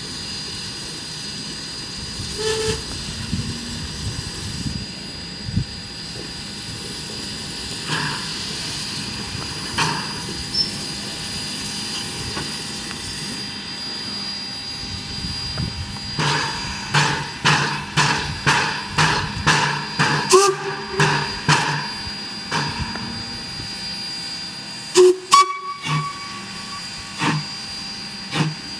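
Rogers K class 4-4-0 steam locomotive No. 88 approaching at low speed: scattered exhaust beats at first, then a regular chuffing of about two beats a second from about halfway through, over a steady hiss. A couple of sharp, loud clanks come near the end.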